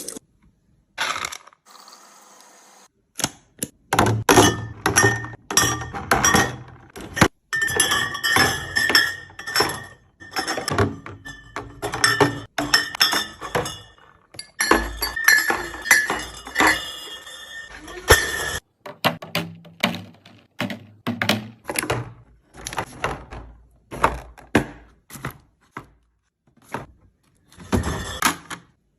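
Glass jars and food containers clinking and thunking as they are handled and set down while a fridge is restocked: a fast, irregular run of knocks and clinks, densest in the first half and sparser towards the end.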